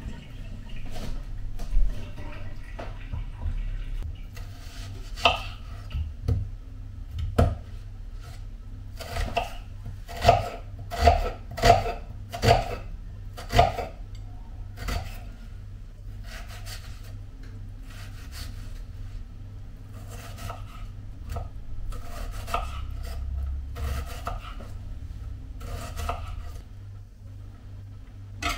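Kitchen knife cutting an onion on a wooden cutting board: irregular knocks of the blade on the board, with a run of louder strokes about two-thirds of a second apart partway through and lighter, quicker taps later as the onion is chopped.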